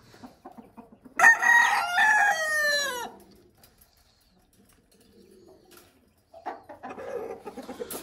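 A rooster crowing once: a single loud call lasting nearly two seconds whose pitch falls away at the end, followed by faint rustling.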